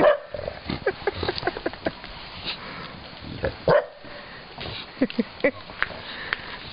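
Dogs barking and yapping in short, sharp barks that come in quick runs, with a loud bark right at the start and another about three and a half seconds in.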